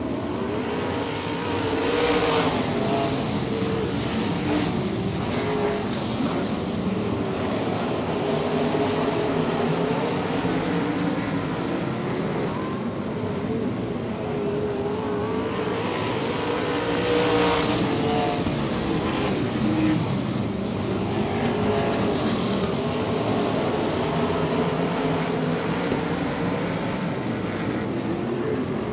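A pack of 360 wingless sprint cars racing on a dirt oval, several V8 engines at once, their notes rising and falling through the turns. There are several louder surges as cars pass close.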